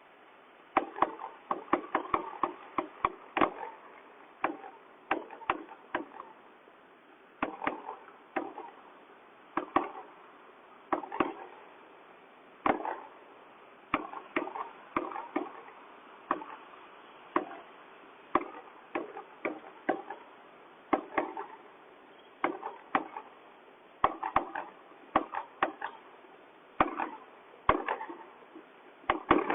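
Fireworks and firecrackers going off: an irregular string of sharp bangs and pops, some single and some in quick clusters of several.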